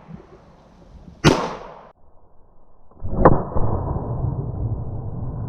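Shots from a 9mm Springfield XDS pistol: a sharp report about a second in, then a duller one about three seconds in, followed by a steady low rushing noise.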